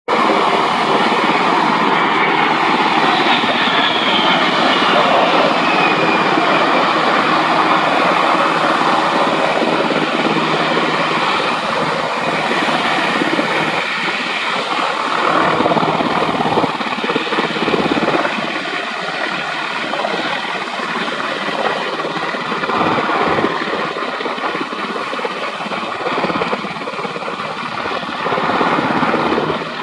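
HH-60 Pave Hawk helicopter flying, its main rotor and twin turboshaft engines running steadily. A high turbine whine falls in pitch a few seconds in, and the sound grows slightly quieter in the second half.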